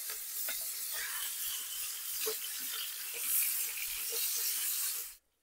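Half-and-half minced meat sizzling in hot oil in a cast-iron Dutch oven as it fries until crumbly, a steady hiss with a few light clicks of a utensil stirring it. It cuts off suddenly near the end.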